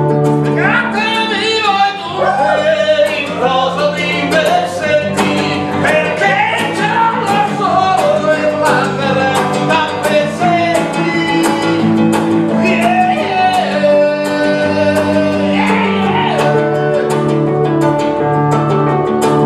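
Nylon-string acoustic guitar strummed in steady chords, with a man singing a wavering melody over it from about a second in until a few seconds before the end.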